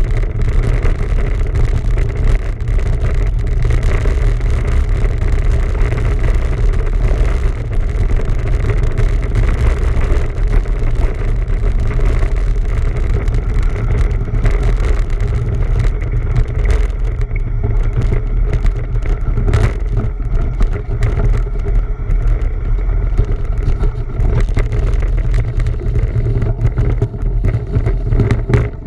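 Steady, loud low rumble of wind buffeting a camera microphone on a moving bicycle.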